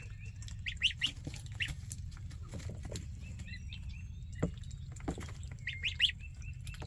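One-week-old ducklings and goslings peeping: quick runs of short, high peeps with a few louder peeps that glide upward, over a low steady hum.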